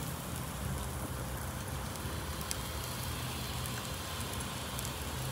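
Meat roasting on a spit over a charcoal mangal, sizzling steadily with scattered sharp crackles as beer and fat drip onto the hot coals, over a steady low hum.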